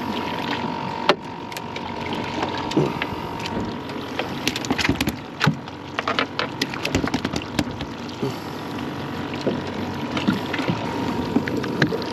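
Water slapping against the hull of a small drifting boat, with scattered knocks and clicks from handling on deck and a faint steady tone underneath.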